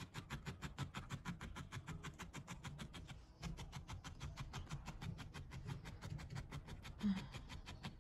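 Fingertips rubbing wool felt against a fabric-covered base in fast, even strokes, rolling the wool firm around the bead eye of a needle-felted head. The strokes stop briefly about three seconds in, and there is a short low sound near the end.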